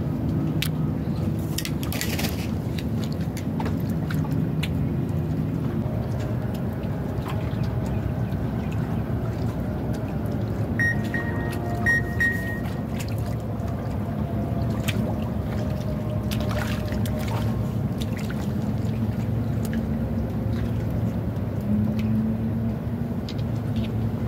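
Sea water sloshing and gurgling among concrete breakwater blocks over a steady low engine hum, with a few light clicks.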